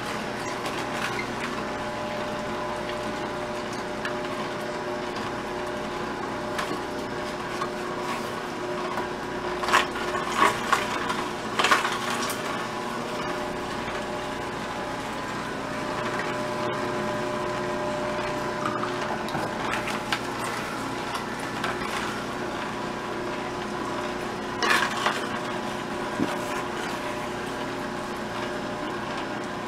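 Vertical slow (masticating) juicer running with a steady motor hum, with bursts of crunching and clicking about ten seconds in and again near the end as cut carrot pieces are fed down the chute and crushed by the auger.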